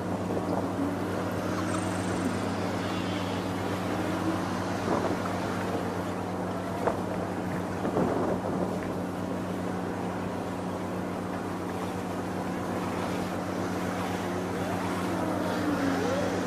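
Wind blowing across the microphone over a steady low hum, with a few faint clicks.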